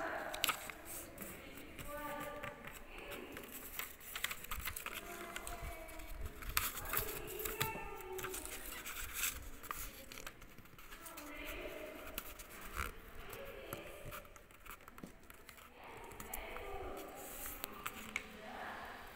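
Colour paper being folded and creased by hand on a tabletop: rustling and crinkling in many short strokes.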